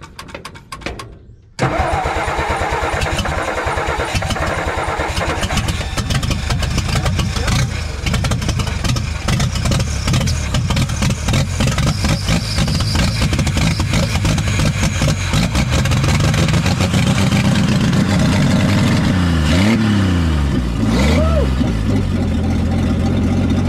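1962 Ford F600's inline-six gasoline engine cranking on the starter, then catching about one and a half seconds in and running, uneven at first and settling into a steadier idle, with two quick revs near the end. It has a slight miss, which the owners put down to ignition points burned by a switch left on.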